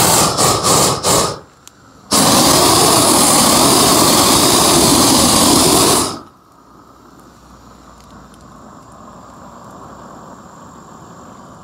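Propane torch fed from a 20-pound tank: several short blasts in the first second or so, then a steady loud roar for about four seconds that cuts off suddenly.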